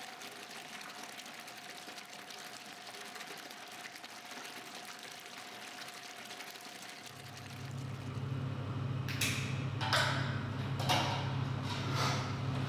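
Young beer running from a transfer pipe into an open fermenting tub, a steady splashing hiss. After about seven seconds a low steady hum sets in, with sharp knocks about once a second that sound like footsteps on a tiled floor.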